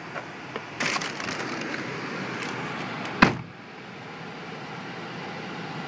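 Handling noises inside a car: scattered clicks and rustling, then one sharp, loud click or knock about three seconds in. After it comes a low, steady car-interior noise as the car gets under way.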